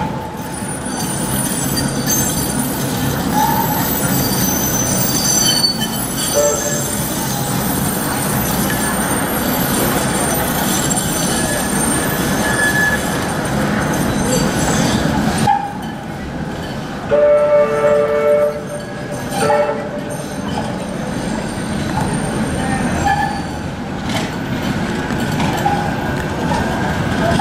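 Manchester Metrolink Bombardier M5000 trams running on street track, with high-pitched wheel squeal in the first half as they take the curves. About 17 seconds in, a steady two-tone tram warning horn sounds for just over a second.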